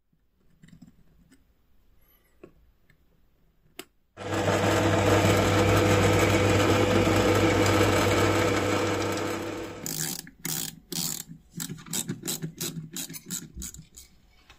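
Bench drill press motor running with a steady hum for about six seconds, then fading. A quick run of sharp clicks follows as small screws are driven into a wooden base with a hand screwdriver.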